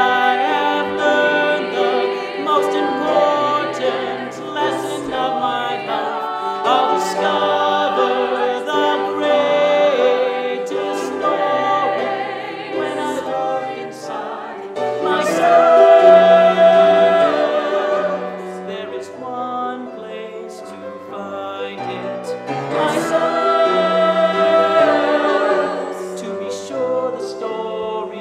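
A stage-musical song: singing voices over instrumental accompaniment, swelling to their loudest a little past the middle.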